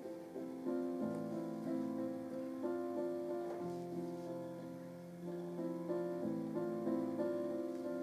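Background piano music: a calm melody over held chords, the notes changing about every half-second to a second.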